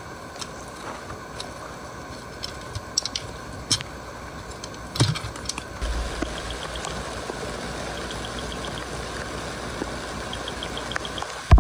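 Clicks and knocks of handling, then a car engine starts about six seconds in and idles with a low steady hum. Short runs of faint rapid ticking sound over it.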